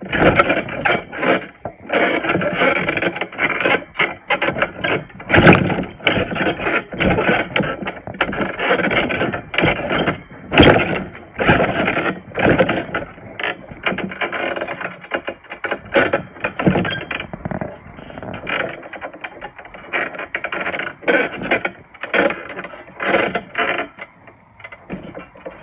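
Garden trampoline creaking and knocking as someone rolls and kicks on it: springs and mat clattering irregularly, with many sharp knocks throughout.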